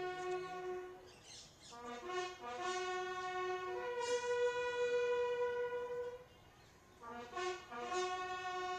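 A military bugle call played slowly as a salute: a series of held notes, with one long sustained note in the middle and a run of shorter notes near the end.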